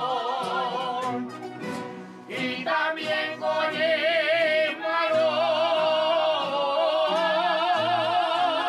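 Aragonese jota sung live to guitars and a bandurria, with long held notes in wide vibrato. The voices drop out briefly about two seconds in, leaving the strings, and then a woman's voice takes up a long high held line.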